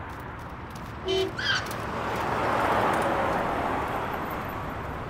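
A car driving past, its tyre and engine noise swelling and then fading, loudest about three seconds in. A short animal call about a second in, before the car.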